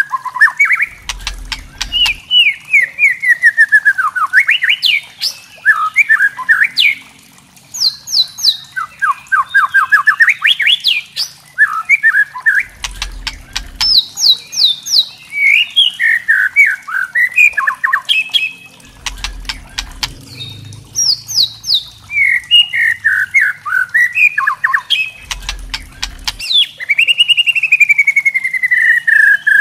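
Juvenile white-rumped shama (murai batu trotol) giving its rattling 'kretekan' calls: fast runs of short chirps, many sliding downward in pitch, one after another, with a long falling trill near the end.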